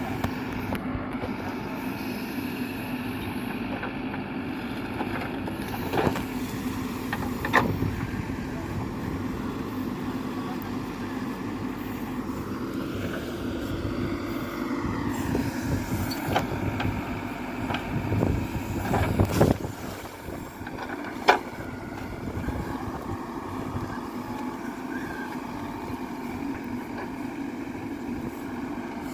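Heavy diesel machinery running steadily, its engine note rising and falling once around the middle, with several sharp knocks scattered through.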